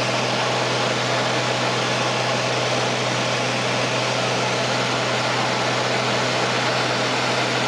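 Cabin noise of a small high-wing propeller plane in flight: a steady engine and propeller drone with an even rush of air, holding constant.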